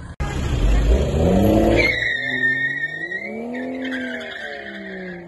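BMW 2 Series coupé pulling away hard with rear wheelspin: the engine revs climb, then from about two seconds in the rear tyres give a long squeal while the engine note rises and falls.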